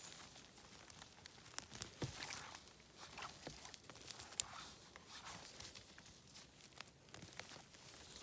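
Faint rustling and crackling of twigs, pine needles and undergrowth as a gloved hand reaches in and picks wild mushrooms from the forest floor, with one sharp click about four seconds in.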